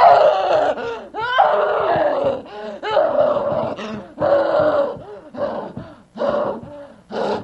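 An actor screaming and groaning in a monstrous, wordless voice as a possessed demon: a string of six or seven cries, the first two sliding up in pitch, the rest held and then breaking off.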